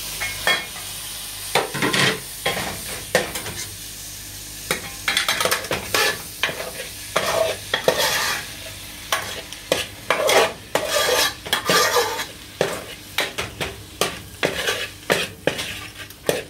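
Metal spoon stirring and scraping freshly added chopped tomatoes through an onion-and-spice masala frying in a metal pan, over a steady sizzle. The scrapes are sparse at first and come in quick, busy runs from about five seconds in.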